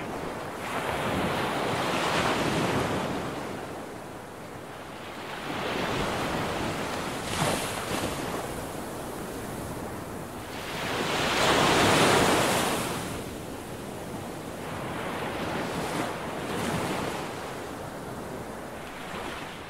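Waves washing in and drawing back in slow surges, about four swells, the loudest about two-thirds of the way through.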